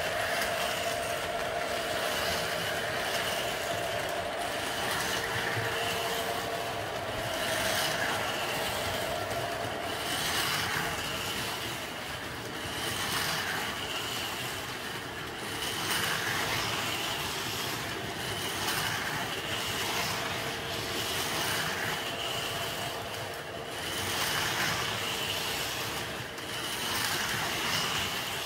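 O scale Lionel CSX diesel train rolling past on three-rail track, with small electric motors whirring steadily from 1:43 Carrera Go slot cars lapping their track. The whirring swells and fades every two to three seconds.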